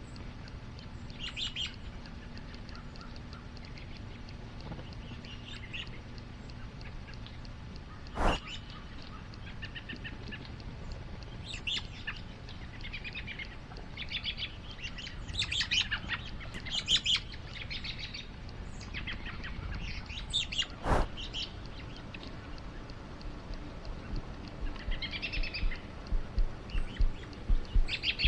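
Wild songbirds chirping and trilling in short, scattered calls, with two sharp clicks well apart and a run of low, evenly spaced thumps near the end.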